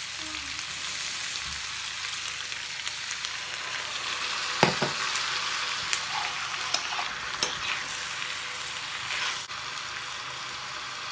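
Shredded chicken and diced onion sizzling steadily in a hot nonstick frying pan, stirred with a metal spoon that scrapes and knocks against the pan a few times around the middle.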